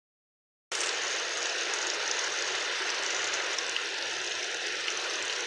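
Heavy rain falling, a steady even hiss that cuts in under a second in.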